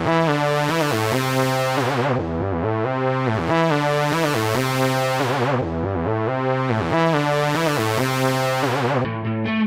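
Instrumental electronic music: sustained synthesizer chords with a low bass line, the chord changing about every two seconds.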